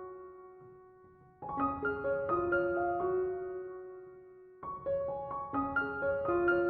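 Gentle, slow piano music: short rising runs of notes that ring on and fade. One phrase dies away, and new phrases begin about a second and a half in and again near the end.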